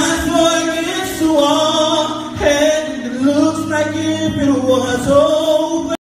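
A man singing into a microphone, holding long notes that bend and slide in pitch with vocal runs. The sound cuts off suddenly near the end.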